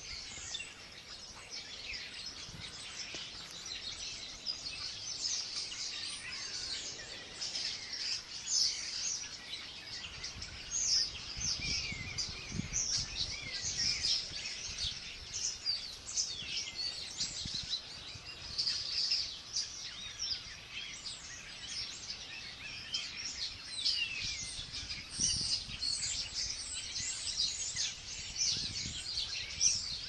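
A chorus of small birds chirping and calling without a break, many short high chirps and quick sweeping notes overlapping. A low rumble comes and goes underneath.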